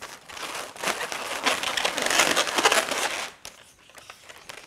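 Latex twisting balloons rubbing and rustling against one another as a finished balloon sculpture is gripped and adjusted in the hands. The scratchy rubbing goes on for about three seconds, then dies down.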